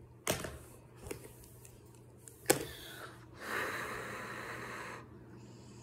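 Paint markers being handled on a table: a few light clicks and taps, the sharpest about two and a half seconds in, then a scratchy hiss lasting about a second and a half.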